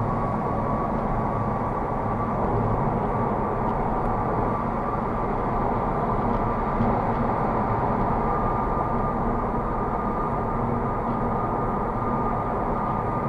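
Piercing, high-pitched tyre whine from a Honda Civic's low-profile Goodyear tyres at highway speed: one steady tone over a hiss of road noise, edging slightly higher in pitch in the second half. The owner blames the whine on the low-profile tyres.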